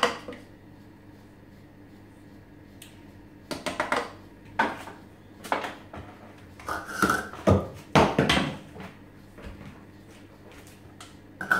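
Kitchen utensils and containers being handled on a counter: scattered clinks and knocks after a quiet start, one with a short ringing tone about seven seconds in.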